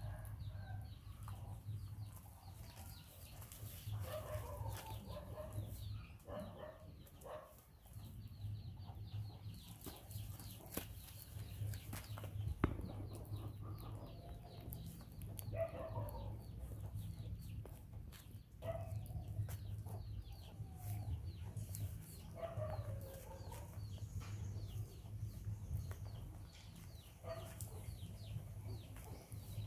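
Short animal calls, each a brief sliding note, repeated every couple of seconds over a steady low hum.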